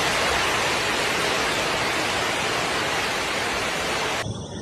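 Torrential storm rain driven by strong wind, a dense, steady wash of noise. It cuts off abruptly about four seconds in, replaced by a quieter low rumble.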